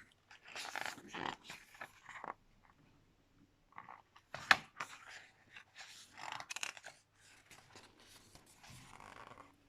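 Soft handling noises of a mediabook booklet being paged through: light paper rustles and taps, with one sharper click about four and a half seconds in.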